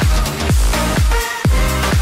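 Electronic dance music with a steady kick drum beat, about two beats a second, under held synth chords.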